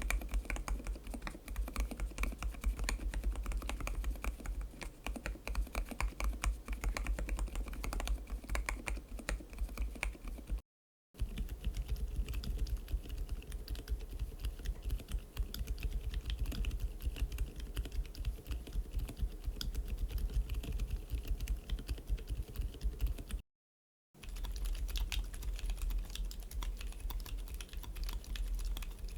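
Steady typing on mechanical keyboards fitted with MMD Princess Silent linear switches: a dense run of muted keystrokes and bottom-outs. The typing comes in three separate takes, each sounding a little different, with two short breaks of silence between them.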